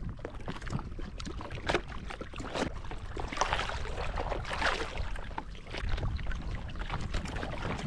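Small sea waves lapping and splashing at the hull of an outrigger boat, with a low steady rumble and scattered light knocks; the splashing is loudest about three to five seconds in.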